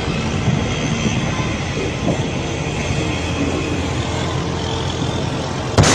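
Steady deep rumble of a massive explosion and its fireball. A sudden loud bang breaks in near the end.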